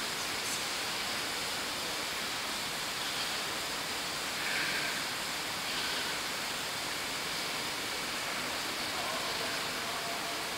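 Steady, even hiss of room tone and microphone background noise, with no speech.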